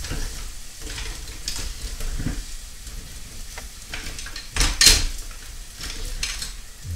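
Onions and herbs sautéing in olive oil, sizzling steadily in a frying pan, with a few knocks and clatters of kitchen utensils, the loudest about five seconds in.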